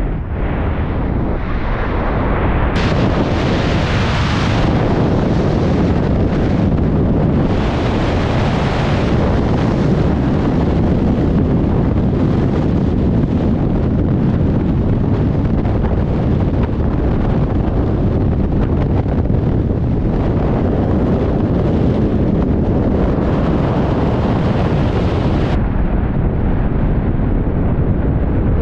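Freefall airstream blasting over the camera microphone during a tandem skydive: a loud, unbroken rush of wind noise. Its hiss thins a little near the end.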